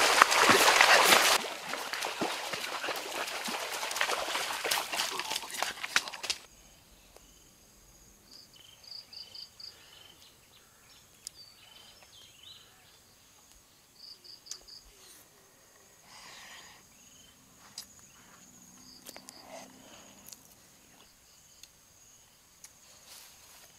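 Water splashing and sloshing as someone wades through a flooded stream, dropping off after about six seconds. Then quiet countryside ambience: a faint steady high insect drone and, a few times, quick runs of short chirps.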